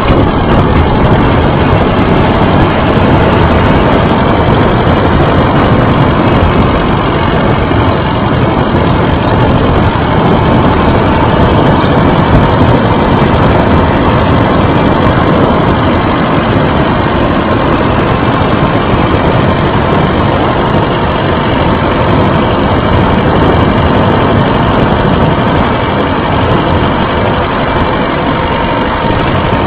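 Steady, loud rumble of tyre and road noise picked up by a bicycle-mounted camera, shaking as the bike rolls over rough, patched asphalt.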